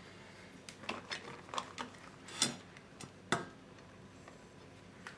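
Light knocks and clinks of a cast-iron pan and a plate being handled while the pie is flipped, with two louder knocks near the middle.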